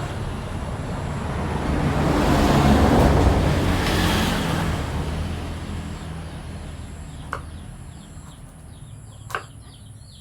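A motor vehicle passes by, its engine hum and road noise growing to a peak about three seconds in and then fading away. Two sharp knocks come near the end.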